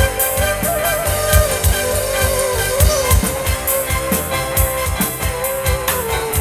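Dangdut band music: a steady, even drum beat under a wavering, bending melody line.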